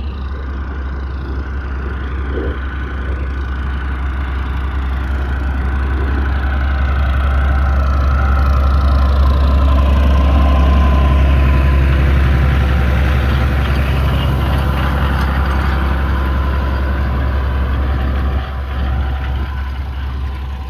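Fendt 306 tractor engine running steadily, growing louder toward the middle and easing off again.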